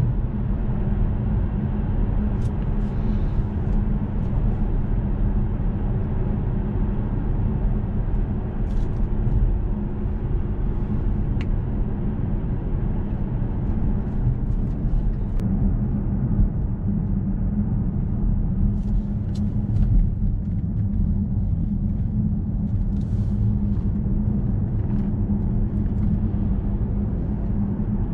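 Cabin sound of a 2014 Audi S6 Avant with its 4.0 TFSI twin-turbo V8 cruising gently and easing off: a steady low engine drone under tyre and road rumble.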